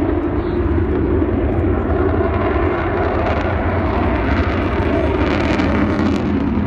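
Avro Vulcan bomber's four Rolls-Royce Olympus turbojets, loud and steady, as the aircraft flies its air-show display; the sound brightens a little around four to six seconds in.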